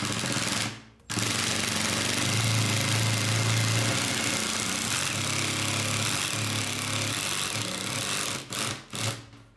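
Ryobi P236A 18-volt brushed impact driver sinking a 3-inch sheetrock screw: after a brief first burst, it runs for about seven seconds with its hammer mechanism rattling steadily under load. A few short trigger pulses near the end seat the screw.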